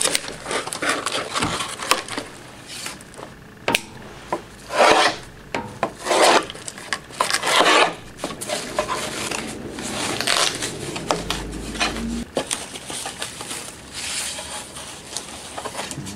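Handling noise from mother-mold pieces being turned over and shifted on a worktable: a series of irregular scraping and rubbing strokes, loudest around the middle.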